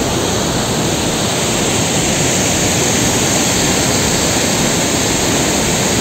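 Waterfall rushing: a steady, loud noise of falling water.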